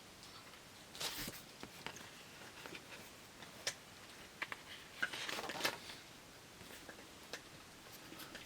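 Paper pages of an instruction manual being handled and turned: two short rustles, about a second in and around five seconds in, with light ticks and taps between them.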